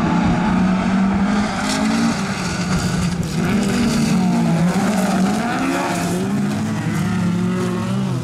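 Several stock car engines revving hard at once, their pitches rising and falling as the cars race and slide in a pack on a dirt track.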